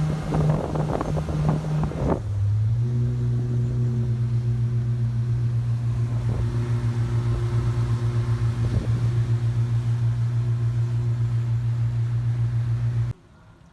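Yamaha 242 jet boat engine running with an even pulsing beat. Its pitch drops about two seconds in as it settles to a lower idle, and it cuts off suddenly near the end.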